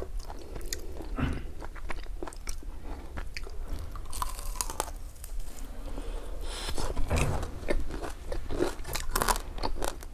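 Close-miked biting and chewing of crispy fried pork, with crunching that comes in spells about four, seven and nine seconds in.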